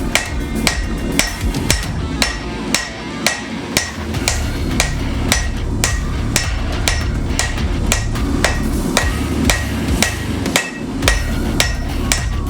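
Hand hammer striking steel on an anvil in a steady rhythm of about two blows a second, each blow ringing briefly: hand forging of a knife blank. A low steady rumble runs beneath the blows.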